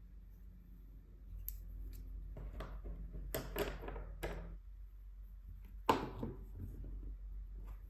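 Painting supplies being handled on a tabletop: a couple of light clicks, a cluster of short scratchy strokes, then one sharper click about six seconds in.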